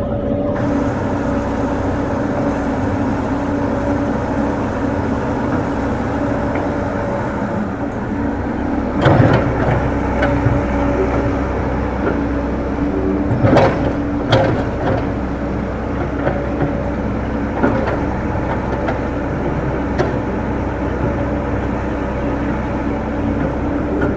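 Komatsu PC100-6 hydraulic excavator's diesel engine running steadily as the machine swings its upper structure and works its boom. A few loud knocks stand out in the middle.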